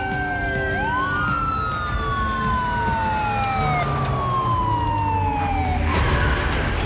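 Police car sirens wailing, several overlapping, each sweeping up and then slowly falling in pitch, stopping about six seconds in.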